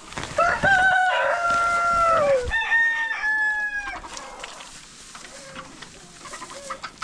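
Rooster crowing twice back to back, the second crow higher-pitched, each ending with a falling drawn-out note; faint hen clucking follows.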